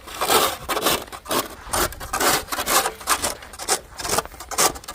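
Snow crunching and scraping in regular strokes, about two a second.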